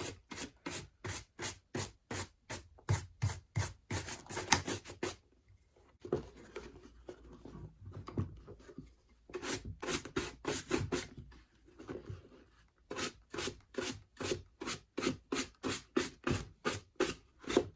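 Nylon-bristle shoe brush scrubbing over a dusty leather boot in quick, even strokes, about three a second, to dust off loose trail dirt. The strokes pause briefly about five seconds in, then carry on.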